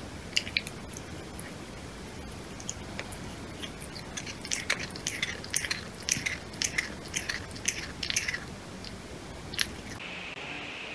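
Sphynx cat chewing on its own tail: a run of short, sharp mouth clicks, a few a second, mostly in the middle of the stretch.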